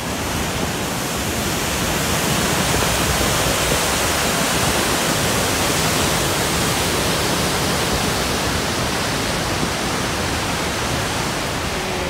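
Large alpine waterfall: a loud, steady rush of falling water, fading in over the first second or so.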